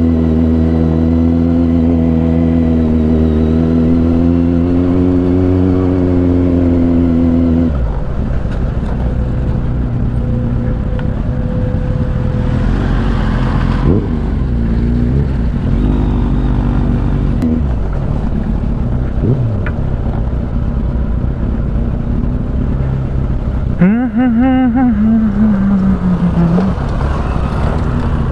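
Motorcycle engine running while riding, heard from the bike itself. It holds a steady note for the first several seconds, then drops to a lower, rougher note about eight seconds in. About 24 seconds in there is a short pitched sound that rises and then falls.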